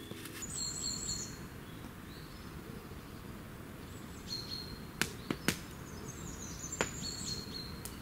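Woodland ambience: a steady low rumble with small birds giving short, thin high calls now and then. There are a few sharp clicks about five to seven seconds in.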